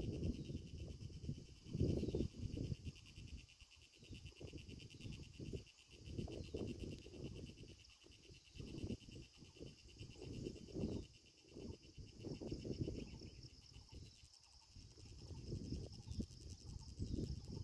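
Insects chirring steadily outdoors in two high, finely pulsing pitches, under irregular low gusts of wind on the microphone.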